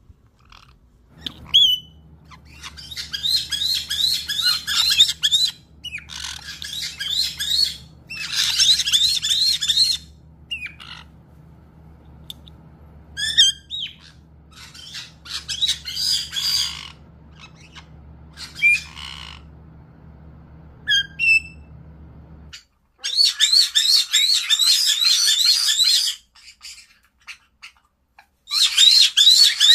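Pet caiques screaming: loud bursts of shrill, rapidly pulsing shrieks lasting a few seconds each, with short single squawks in between.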